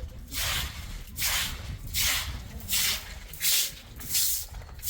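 Rhythmic swishing, hissy strokes, about one and a half a second, each a short burst of noise like something brushed, scraped or crunched.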